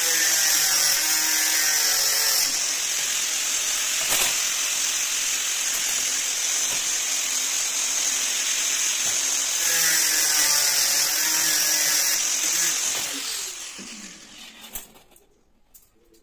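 Handheld power tool with a high, steady whine cutting through a steel drive-rod strip of a PVC balcony door's locking hardware, being trimmed to length. The tool winds down and stops about 13 seconds in.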